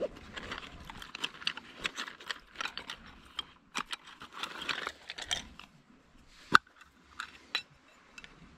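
Rustling and light clicking of small gear being taken out of a leather pouch, then one sharp click about two-thirds of the way through, followed by a few softer clicks.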